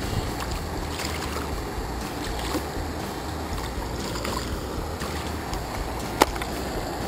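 Shallow mountain stream rushing over rocks close by, a steady wash of water with a low rumble underneath. About six seconds in there is a single sharp knock.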